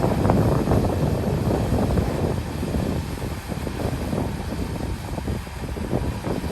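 Heavy diesel earthmoving machinery running under load: a rough engine rumble with crackling noise over it, a little louder for the first couple of seconds and then easing slightly.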